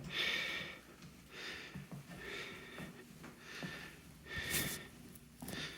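Breathing close to the microphone, a soft puff of breath about once a second, with one louder puff near the end.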